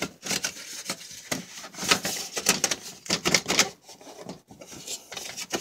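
Metal under-engine splash shield of a 2012 Honda CR-V being worked loose and pulled forward by hand, rattling and scraping with irregular clicks and knocks.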